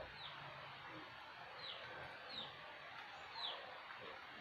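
A small bird chirping: short, high chirps that slide downward, about one a second, over a steady background hiss.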